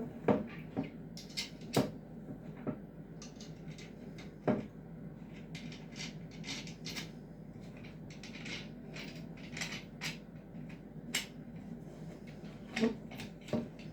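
Parts of a cross-stitch embroidery stand being handled and fitted: irregular clicks and knocks, with short rustling in between.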